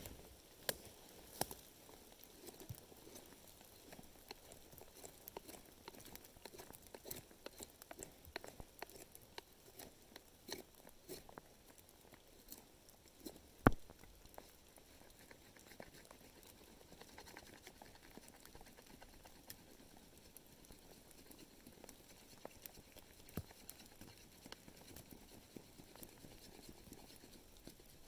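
Knife carving shavings from a wooden stick: faint, irregular crackling cuts, with one sharp knock about fourteen seconds in.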